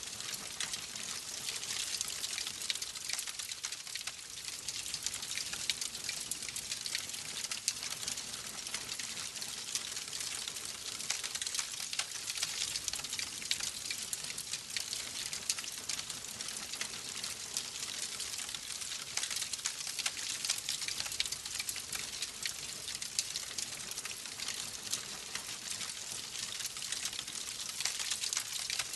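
Wood fire burning in a fireplace, crackling steadily: a continuous hiss dotted with many small pops and snaps.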